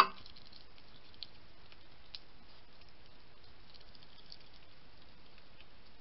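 A single sharp knock with a brief ringing tail right at the start, as a hedgehog brushes against the trail camera. It is followed by a few faint scattered clicks and rustles over the steady hiss of the camera's microphone.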